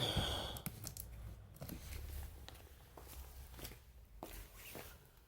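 A cardboard box being handled and opened: a short loud rasp at the start, then scattered light clicks and rustles.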